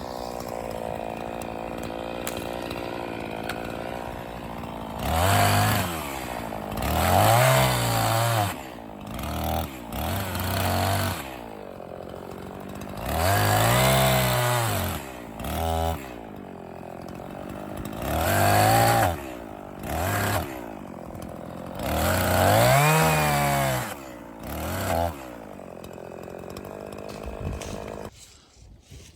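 Echo CS-501P two-stroke chainsaw idling, then revved to full throttle again and again as it bucks dry ash into firewood rounds, its pitch rising and falling with each pass. The saw shuts off near the end.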